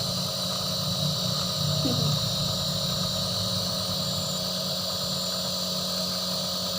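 Nebulizer compressor running with a steady hum and a high hiss, turning medicine into mist for a baby's blocked nose and cough.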